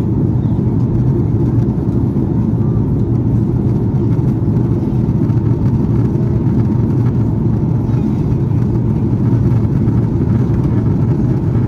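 Cabin noise inside an Airbus A330-223 airliner: the steady low drone of its Pratt & Whitney PW4000 turbofan engines and the airflow around the fuselage, even and unchanging.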